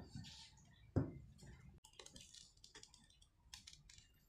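Two dull knocks on a table about a second apart as a smartphone is handled and set down, then faint light clicks and rustles of a tempered-glass screen protector and its plastic film being handled.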